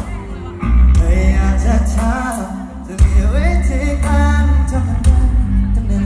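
Thai rock band playing live on stage, with a male lead singer over electric guitars, bass and drums and a heavy low end, heard from within the audience.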